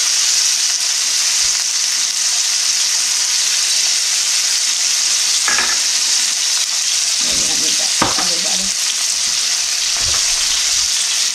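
Ribeye steaks sizzling steadily in hot olive oil and melting butter in a cast iron skillet, with a few light clicks about halfway through.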